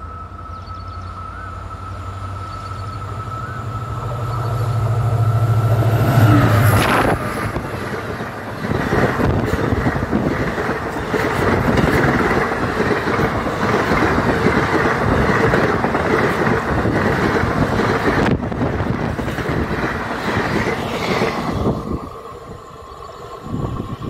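Indian Railways express passenger train approaching and passing at speed: a low locomotive drone grows louder over the first seven seconds. The locomotive goes by about seven seconds in, then the coaches rush past over the rails for some fifteen seconds. The sound drops off abruptly about 22 seconds in.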